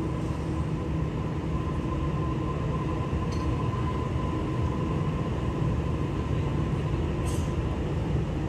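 Sydney Trains Waratah double-deck electric train rolling slowly past along the platform: a steady low rumble with a faint, even whine.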